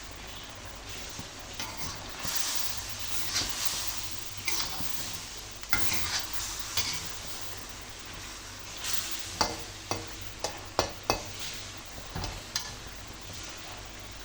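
Food sizzling in a hot pan while a cooking utensil stirs it, scraping and clinking against the pan several times in the second half.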